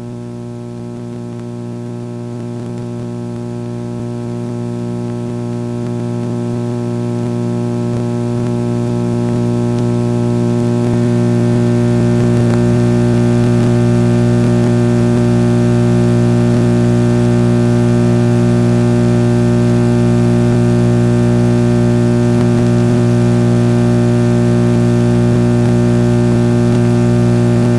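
A steady electrical hum with a low fundamental and many even overtones. It grows louder over the first ten seconds or so, then holds steady.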